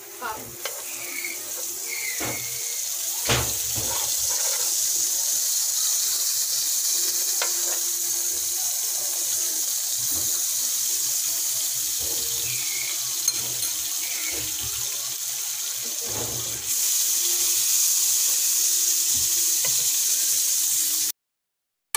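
Butter melting and sizzling in a hot nonstick pan: a steady frying hiss, with a few clicks of a metal spoon against the pan in the first seconds. The sizzle grows louder about three-quarters of the way through and cuts off suddenly near the end.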